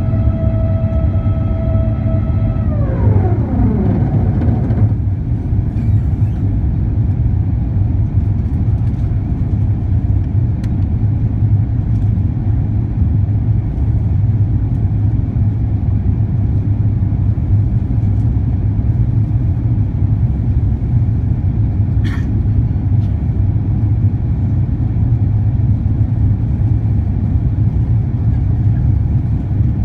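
Steady roar inside the cabin of an Airbus A350-941 climbing after takeoff: Rolls-Royce Trent XWB engine noise and airflow with a deep rumble. A whining tone falls in pitch and fades out about three to four seconds in, and a short click comes once later on.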